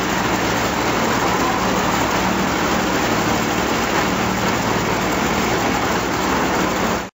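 Twin Pratt & Whitney R-985 Wasp Junior nine-cylinder radial engines of a 1945 Grumman G-21 Goose running steadily, with a loud, even rush of propeller and exhaust noise. The sound cuts off suddenly near the end.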